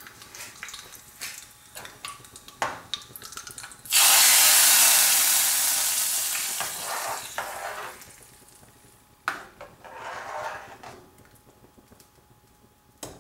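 Hot tempering oil with popped mustard seeds and curry leaves poured into a pot of sambar. It hisses and sizzles loudly about four seconds in, then the sizzle fades over several seconds. Scattered clicks and clinks of the metal pan and ladle come before it, and a short stir follows.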